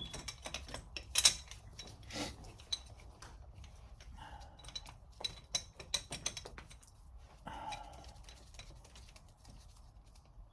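Metal clicks and clinks of a Wheeler-Rex copper crimp shutoff tool being handled and set up, scattered irregularly, the sharpest about a second in.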